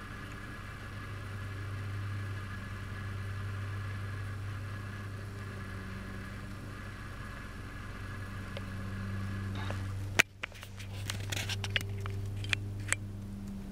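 Steady low hum throughout. About ten seconds in there is a sharp click, followed by a few small, faint clicks and rustles.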